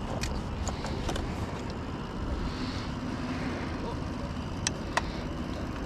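Sharp plastic clicks as a hand-held plastic fish lip-grip tool is worked: a few light clicks early, then two louder ones close together near the end, over a steady low rumble.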